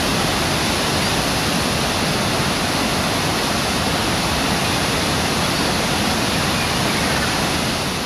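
Waterfall and river water rushing in a loud, steady roar with no breaks.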